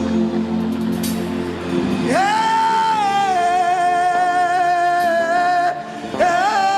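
Church worship music: sustained chords, then about two seconds in a voice takes over, holding one long high sung note for about three and a half seconds, sliding slightly lower, followed by a second held note near the end.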